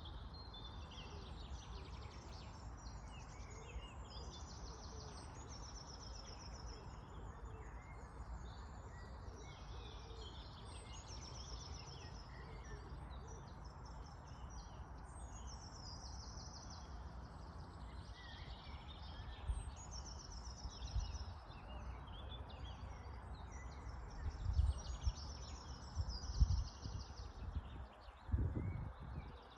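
Songbirds singing, one repeating a short high trill every few seconds, over a steady low outdoor rumble. Several dull low thumps come in the last few seconds.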